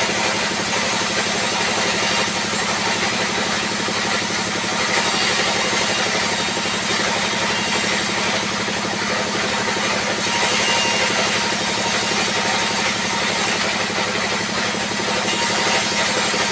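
A sawmill band saw driven by a diesel engine runs steadily as rough slabs of wood are fed through the blade. A high hiss from the cutting comes and goes every few seconds as each board passes through.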